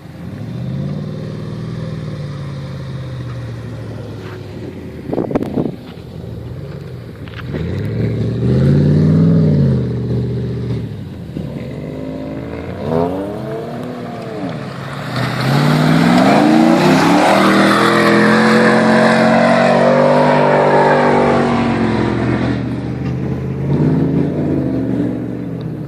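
Off-road four-wheel-drive vehicle's engine revving hard again and again, its pitch climbing and falling with each burst of throttle. In the second half it holds high revs for about seven seconds, the loudest part, with a rushing noise over the engine. A single sharp click sounds about five seconds in.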